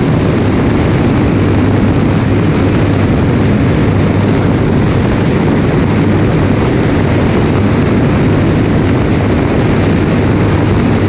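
Single-engine light propeller aircraft in cruise flight: a loud, steady drone of engine and propeller mixed with rushing slipstream buffeting a camera mounted on the wing.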